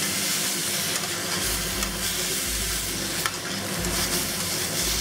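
Broccoli florets sizzling in a hot oiled pan while being tossed with tongs, with a few sharp clicks of the tongs against the pan.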